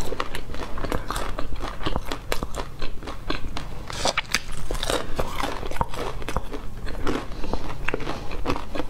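Close-miked chewing of crisp, crumb-coated fried food: a steady run of irregular crunches and crackles with each bite and chew.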